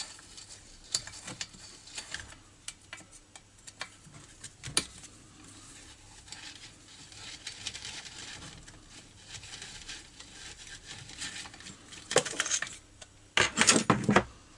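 Metal hand tools clicking and scraping on a petrol string trimmer's carburetor mounting as the carburetor is unbolted and removed. Near the end there is louder rattling and clattering as it comes off.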